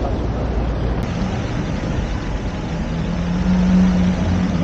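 Steady rush of wind and street traffic noise on the camera, with a low hum swelling about three seconds in.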